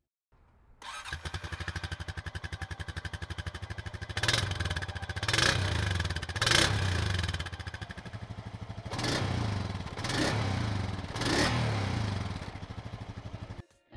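Honda Rancher 420 ATV's single-cylinder engine idling with a rapid even putt through its stock muffler. The throttle is blipped six times in two groups of three, each a short rise and fall in revs, and the sound cuts off just before the end.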